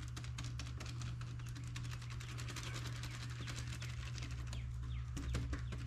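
A resin-soaked paintbrush dabbing on fiberglass mat, making rapid light wet taps, several a second. The brush is being stippled straight down to soak the mat with resin without dragging it out of place. A steady low hum runs underneath.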